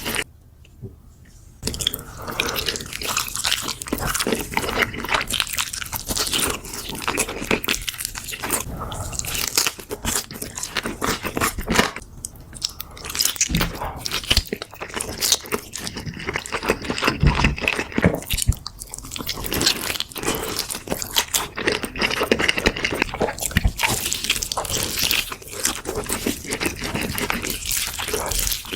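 Close-up crunching of crispy fried chicken being bitten and chewed, a dense run of crackling crunches that pauses briefly just after the start.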